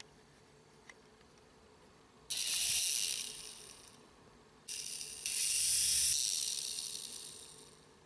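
Gyro Zoomer mini RC coaxial helicopter's small electric motors and plastic gears whirring as the rotors spin up. It happens twice: about two seconds in, and again from near the middle with a step up in speed, and each time it winds down over a second or two. Faint clicks come first.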